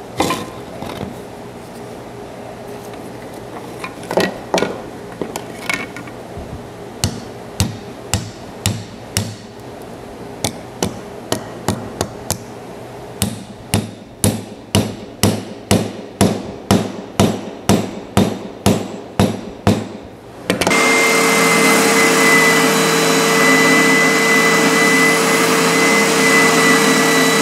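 Hammer blows driving a glued wooden wedge into the end of an oak handle seated in a steel hammer head: a few scattered strikes, then a steady run of about two blows a second. About twenty seconds in, the blows give way abruptly to a spindle sander running with a steady hum and a high whine.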